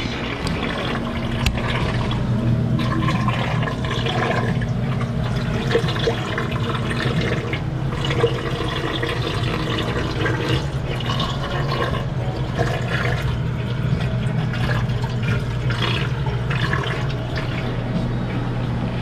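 Water running and splashing in aquarium tanks over a steady low pump hum.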